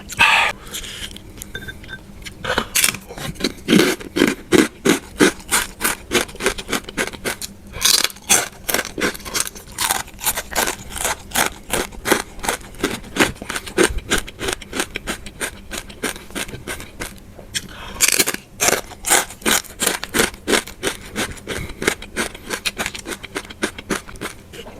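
Close-miked crunching of crispy fried pork skin being chewed: a steady rhythm of crisp crunches, about two a second.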